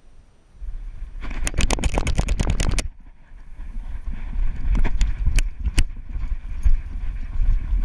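Sound from a camera strapped to a running dog. About a second in comes a rapid run of clicks and rattles lasting a second and a half, then low thuds and rumble from its strides over snow with a few sharp clicks.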